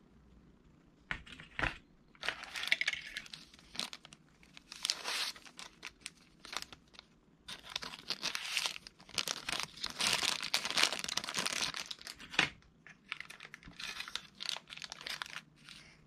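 Keyboard packaging being unwrapped: crinkling and tearing in irregular rustling bursts, with a couple of sharp knocks.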